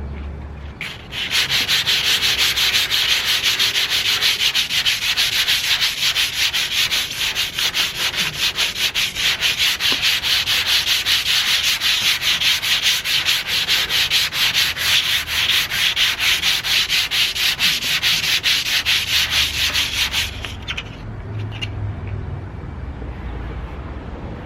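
Sandpaper scraping in quick, even back-and-forth strokes over the painted body panel of a 1991 Toyota MR2, stripping the paint. The strokes start about a second in and stop about four seconds before the end.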